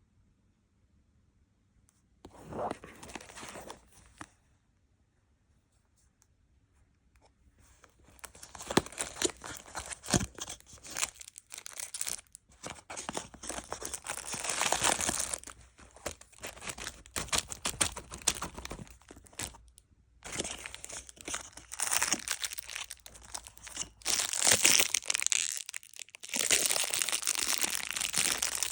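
Packaging of a dental guard being torn open and crinkled. A short burst of rustling comes about two seconds in, then a few quiet seconds, then nearly continuous tearing and crinkling from about eight seconds in, broken by brief pauses.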